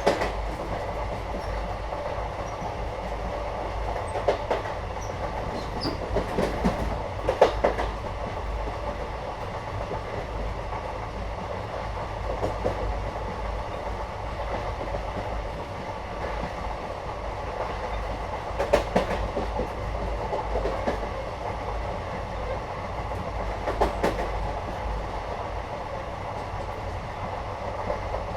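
Interior of a moving Indian passenger train: the carriage's steady rumble with the wheels clattering over rail joints. Louder clunks come every few seconds.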